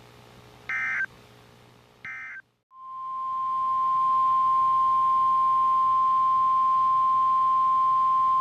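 Emergency Alert System SAME digital data bursts: two short buzzy squawks, the end-of-message code closing the previous warning. About two and a half seconds in, the NOAA Weather Radio 1050 Hz warning alarm tone starts, swells over about a second and then holds as one loud steady tone, signalling that a new warning is about to be read.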